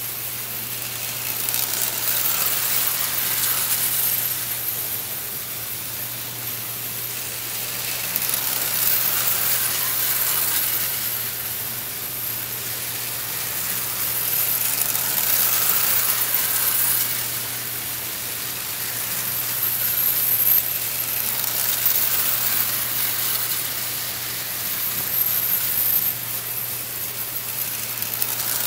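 Pre-war Lionel electric toy trains running on tinplate track, a steady rattling clatter of wheels and motors on the rails over a constant low hum. The clatter swells and fades about every five to six seconds as the trains come past close by.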